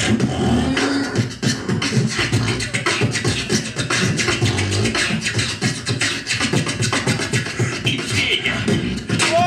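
Live beatboxing: a hip-hop beat made with the mouth, fast kick, snare and hi-hat sounds over a low hummed bass, running on steadily.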